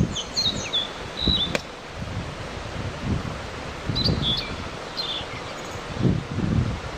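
A songbird giving short, high chirps in quick clusters, once near the start and again about four seconds in, over a continuous low rustling noise.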